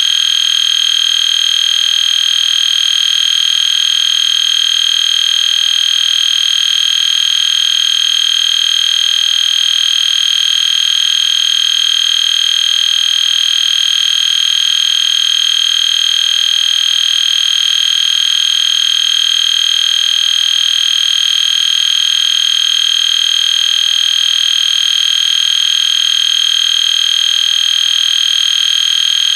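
EST Genesis fire alarm horn sounding continuously: one steady, loud, high-pitched electronic tone held without a break.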